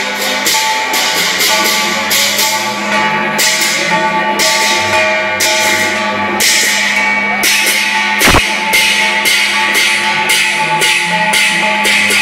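Festive music driven by rhythmic crashing of cymbals and drum beats over steady held tones, with a single thump about eight seconds in.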